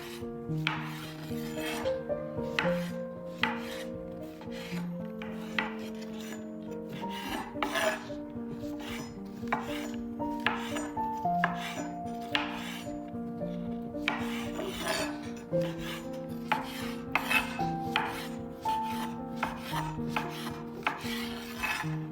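Kitchen utensil work, irregular scrapes and knocks about once a second, over soft background music of held notes.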